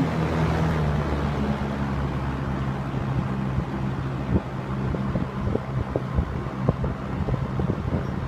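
1975 Lakewood Country Aire S-223 20-inch box fan with an early McMillan motor, just switched from high to medium: its steady hum drops in pitch about a second in as it slows, then runs on at medium speed. Light ticks come now and then, more often in the second half.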